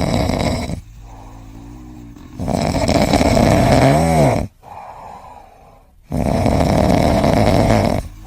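An animal snoring loudly, with long rasping snores about every three and a half seconds and quieter breaths between them.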